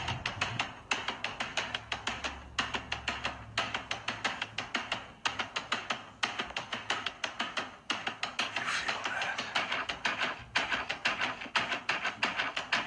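Background music with a fast, even run of tapped or plucked notes, about seven a second, in phrases broken by short pauses.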